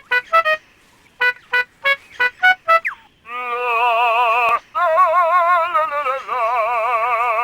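Male lyrebird singing his display song: a quick series of short, clear whistled notes, about three a second, then a long warbling electronic-like tone with a fast, even wobble in pitch, broken once briefly. It is mimicry of sounds heard in the forest.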